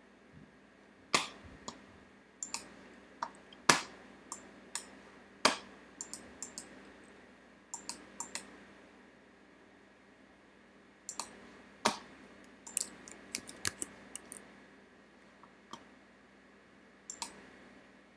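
Computer mouse and keyboard clicks, irregular and scattered, some in quick pairs like double-clicks, with quiet stretches between them.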